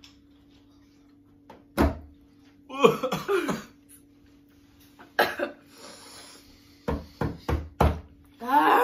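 Sharp knocks on a wooden tabletop, one about two seconds in and four in quick succession near the end, between short pained vocal sounds from people reacting to an extremely sour candy.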